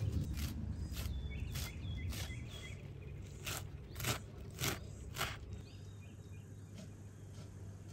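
Large kitchen knife chopping a pile of fresh herbs (parsley, coriander, dill) on a wooden cutting board, a chop about every half second, stopping about five seconds in.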